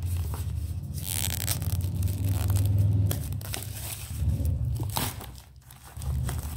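Clear plastic wrapping crinkling and rustling as a cardboard boxed tarot deck is handled, with low bumps from the box being moved about.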